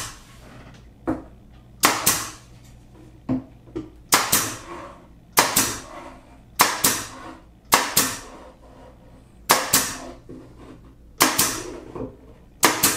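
Pneumatic pin nailer firing pins into wood trim about ten times, one every second or so, each a sharp crack with a brief tail.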